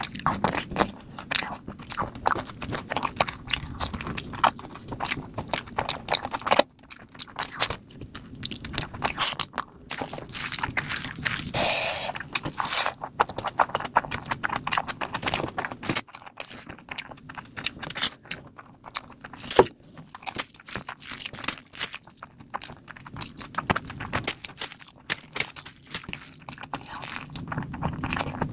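Close-miked eating sounds: chewing and smacking on mouthfuls of biryani rice eaten by hand, with many quick irregular clicks.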